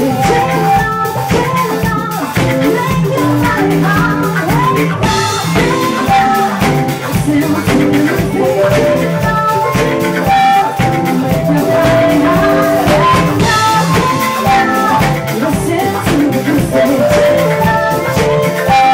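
Live band playing: a woman singing lead into a microphone over bass and drum kit, with a steady beat.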